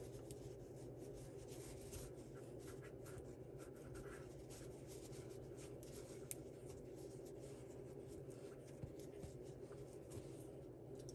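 Faint rubbing and light scratching of cotton potholder loops as fingers and a crochet hook pull the corners of the bound-off edge into shape, over a steady low hum.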